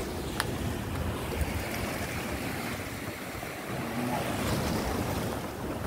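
Sea surf washing against a rocky shoreline, a steady wash with wind buffeting the microphone; a single sharp click just under half a second in.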